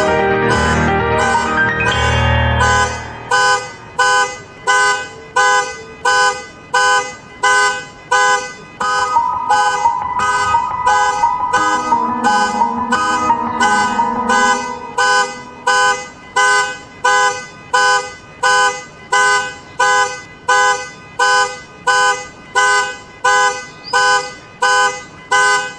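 Piano chords die away a few seconds in, then a car alarm sounds the car's horn in short, evenly repeated blasts, a little more than one a second. A held piano chord sounds under the blasts for a few seconds partway through.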